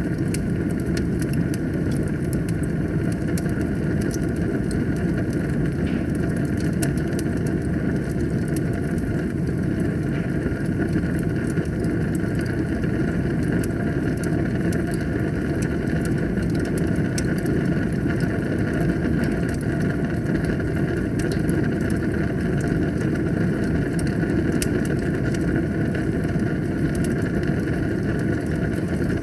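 Wood fire burning in a fireplace: a steady low rush of flames with frequent small crackles and pops throughout.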